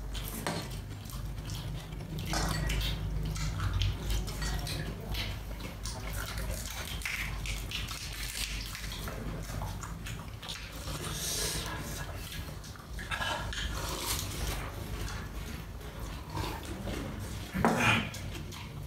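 Close-up eating sounds: wet chewing, lip-smacking and slurping, in short irregular bursts over a steady low hum.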